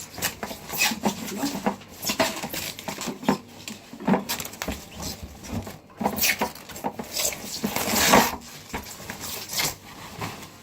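Irregular knocks, clicks and clatter of plastic and metal espresso-machine parts being handled, mixed with rustling of packaging, with a longer rustle building up about eight seconds in.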